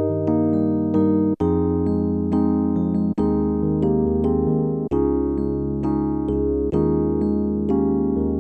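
Electric piano music: held chords with a melody of struck notes, broken by a few very brief drop-outs between phrases.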